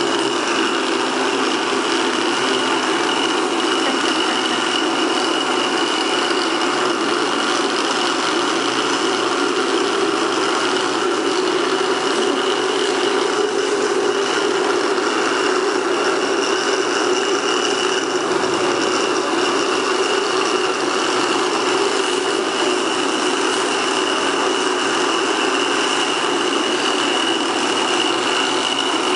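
Small electric motors of several robots built from rubbish, buzzing steadily with a constant high whine over a lower hum.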